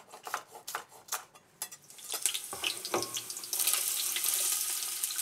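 A knife chopping onions on a wooden cutting board with a few sharp knocks. About three and a half seconds in, the onions are pushed into a pot of hot melted lard and start sizzling steadily.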